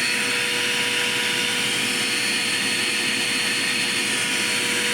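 Dirt Devil Quick Power vacuum cleaner running steadily: a constant whine over an even rush of air.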